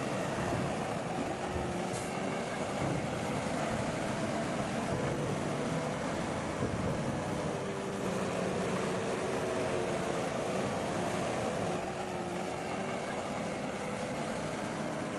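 Heavy earthmoving machinery running steadily, a diesel engine note wavering slightly in pitch as it works.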